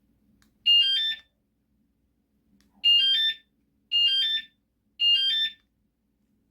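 Mengshen wireless bike alarm chirping: four short bursts of quick stepped electronic tones. The first comes alone about a second in; the other three follow close together, about a second apart.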